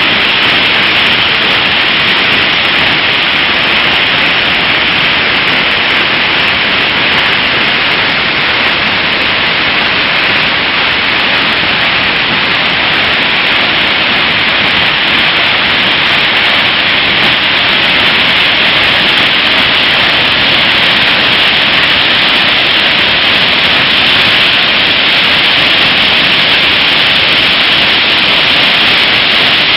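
Water being released from a dam, a massive jet plunging into the river gorge in spray: a loud, steady rush of water that does not change.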